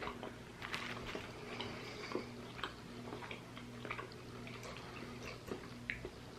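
Faint, irregular small clicks and crackles, like close handling or mouth noises, over a steady low electrical hum.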